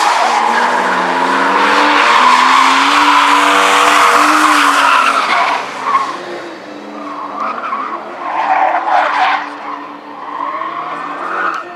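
Drift car sliding through a corner: the engine revs up and down while the tyres screech, loudest for the first five seconds. After that come weaker surges of revving and tyre squeal as the car moves off across the track.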